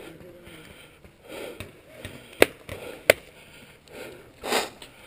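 Two sharp paintball cracks about three-quarters of a second apart, near the middle: paintballs fired or hitting cover close by. A short breathy sound follows near the end.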